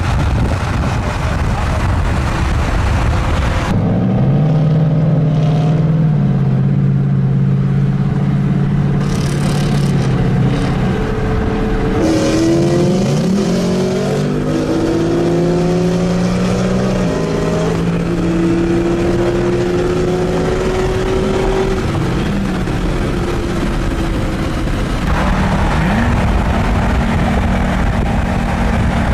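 V8 car engine running loud, its pitch stepping and gliding up and down as engine speed changes. A loud rushing noise covers the first few seconds and returns near the end.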